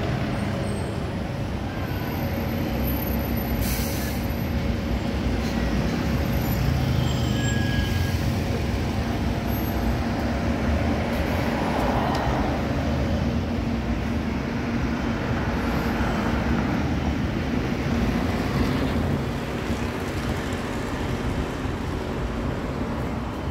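Heavy road traffic with London double-decker buses running close by: a steady low engine hum, a vehicle swelling past about twelve seconds in, and a brief hiss about four seconds in.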